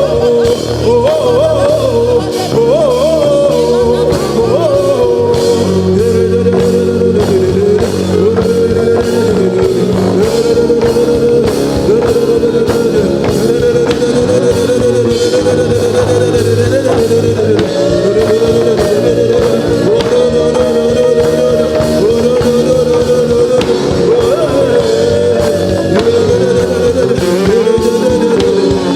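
Worship band music with drums and bass, under a voice singing a long, wavering melody with no clear words.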